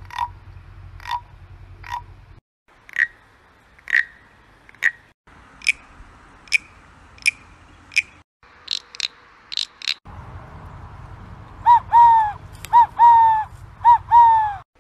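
Handheld wooden animal-call instruments played in turn: a carved wooden frog rasped with a stick, giving short croaks about once a second, then short higher chirps in several cuts. Near the end comes a louder call blown on a wooden whistle, its notes bending down in pitch and repeated in quick pairs.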